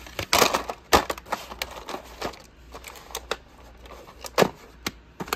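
Plastic clamshell VHS cases being handled on a wooden floor: a series of clicks, taps and knocks of hard plastic with a brief rustle, the sharpest knocks about a second in and again near the end.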